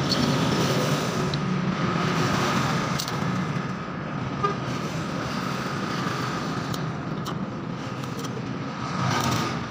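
Steady road-traffic noise with a faint horn-like tone, broken by a few light clicks of small metal parts being handled.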